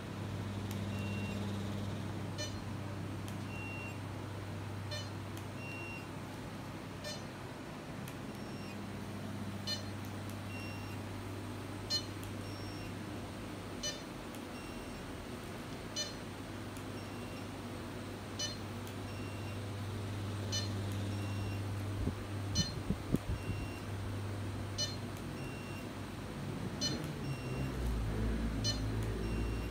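Laser toning machine firing its handpiece about once a second, each pulse a sharp click, with short electronic beeps from the unit between pulses over a low steady hum.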